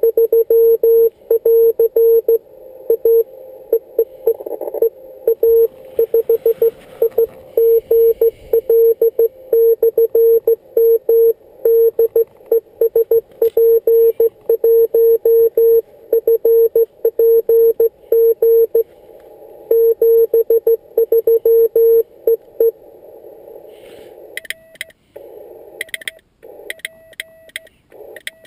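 Morse code (CW) from a Yaesu FT-817ND ham radio transceiver: a steady mid-pitched tone keyed on and off in dots and dashes, stopping about 23 seconds in. Near the end a higher-pitched Morse tone takes over, with a sharp click on each element.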